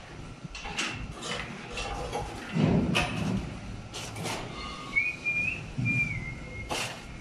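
Scattered knocks and a few dull thuds as a precast concrete lintel is worked into place on a steel lifting jack above a doorway. A thin wavering whistle comes in about halfway through.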